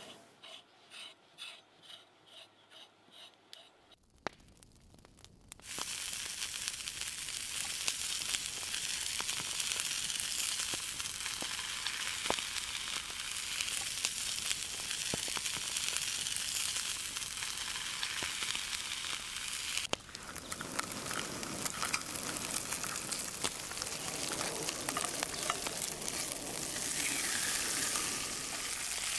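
The back of a knife scrapes the slime off raw eel skin in repeated strokes, about two a second. Then eel fillets sizzle steadily as they fry skin side down in a cast-iron skillet.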